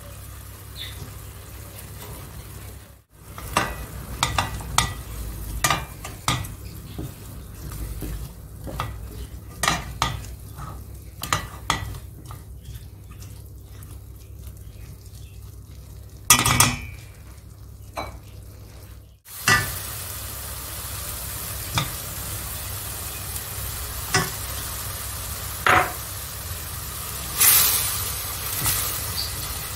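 Food sizzling in a frying pan while a cooking utensil stirs it, with repeated clicks and scrapes of the utensil against the pan. The sound breaks off briefly twice, and the sizzle is louder and hissier in the second half.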